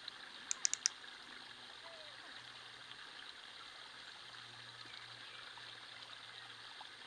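Faint, steady rushing of flowing water, like a small stream. About half a second in, four quick, sharp high clicks.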